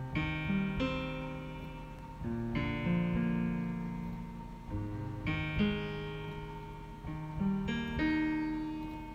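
Instrumental music: chords on an acoustic guitar, a new chord struck about every two to two and a half seconds and left to ring and fade.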